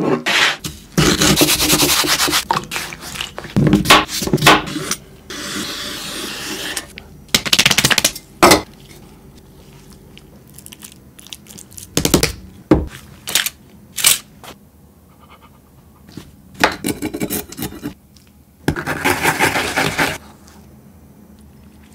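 Close-up kitchen prep sounds. A utensil scrapes and mixes minced tuna in a glass bowl, then come scattered clicks and taps of handling. Near the end, wasabi is rubbed in quick strokes on a sharkskin grater.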